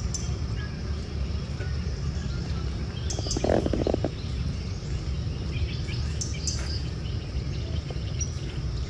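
Outdoor ambience of a steady low rumble with scattered short high-pitched chirps, and one brief louder call about three and a half seconds in.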